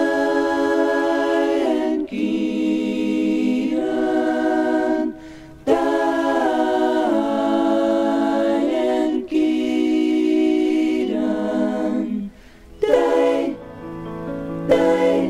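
Song opening with several voices singing a cappella in close harmony: long held chords, each lasting a second or two, with short breaks between phrases.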